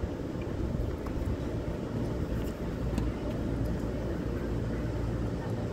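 Steady low outdoor rumble of background noise, with no clear event standing out.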